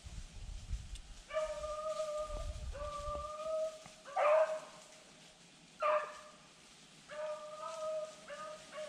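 Rabbit-hunting beagles baying while running a rabbit: a string of long, drawn-out howls of about a second each, broken by two shorter, louder bays about four and six seconds in.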